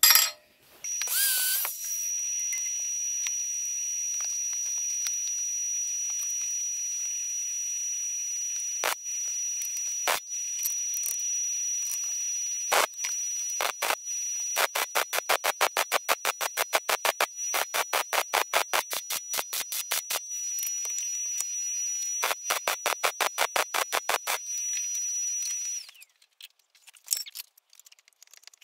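Electric welder arc-welding a steel steering-column bracket held in a vise: a steady hiss with a thin high whine, broken in the middle by runs of rapid, evenly spaced crackles, about eight a second. It stops a couple of seconds before the end.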